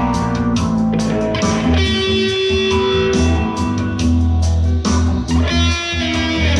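Single-cutaway solid-body electric guitar played through a small amplifier, picking a melody of sustained single notes over a steady deep bass line.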